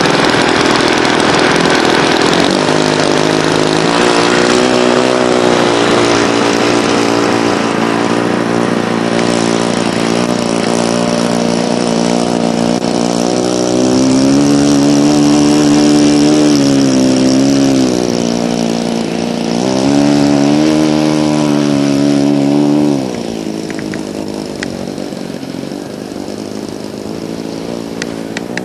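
SC .70 four-stroke glow engine of a radio-controlled model plane running at high revs, its pitch rising and falling several times with the throttle. About 23 seconds in it drops back to a lower, quieter run.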